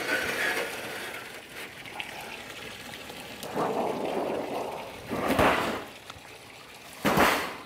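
Water splashing in a few short bursts, the last two briefer and louder.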